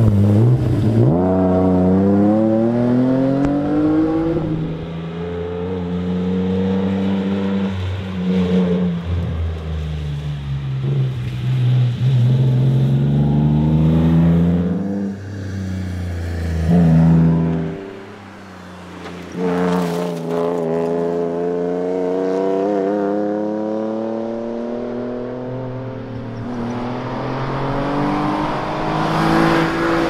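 Alfa Romeo GTV rally car's engine driven hard past the camera, its note climbing again and again under acceleration and falling away on the shifts and on lifting off. The sound dips briefly a little past the middle, then builds again.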